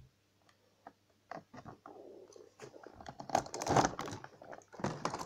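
A cardboard toy box and its packaging being handled: scattered clicks, rustles and crinkles after about a second of quiet, busiest in the second half.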